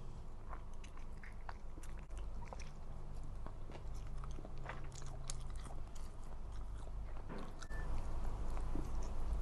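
A person chewing and biting food close to the microphone, with many small, sharp mouth clicks, over a steady low hum.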